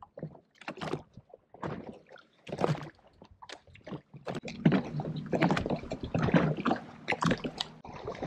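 Water slapping and sloshing against the hull of a Sea-Doo jet ski drifting on choppy sea, in irregular splashes that grow busier and louder about halfway through.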